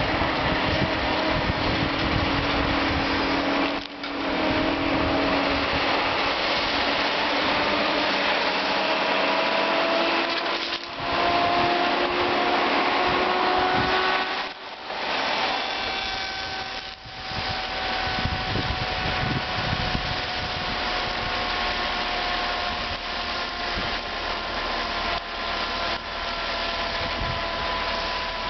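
Timbco feller buncher working: its diesel engine and hydraulics run steadily under load, with a faint whine that slowly slides in pitch. The level drops briefly a few times.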